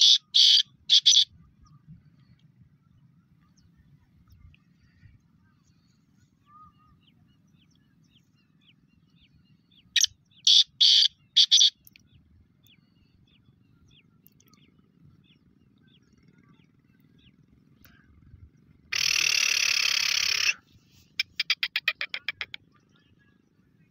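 Black francolin calling from its cage: a phrase of four loud, harsh notes at the very start and another phrase of about five notes some ten seconds in. Near the end comes a loud noisy burst lasting about a second and a half, followed by a quick run of short ticking notes.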